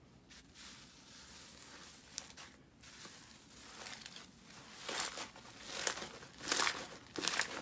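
Slime being handled by hand, crackling and crinkling: faint at first, then louder crackly bursts about once a second over the last few seconds.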